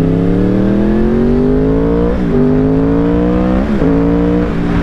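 Yamaha R1 sportbike's inline-four engine accelerating hard, its revs climbing and then dropping sharply at two quick upshifts, about two seconds in and again near four seconds, before holding nearly steady.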